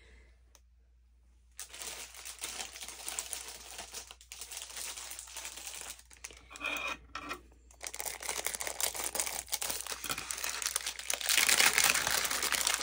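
Clear plastic packaging bag crinkling and rustling as it is handled, starting about a second and a half in and getting louder near the end.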